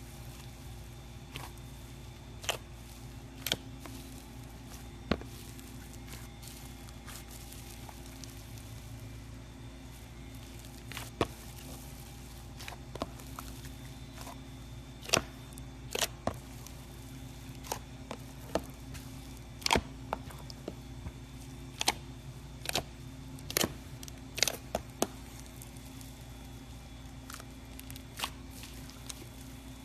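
Irregular sharp clicks and taps, a few seconds apart at first and then more frequent in the middle, over a steady low hum.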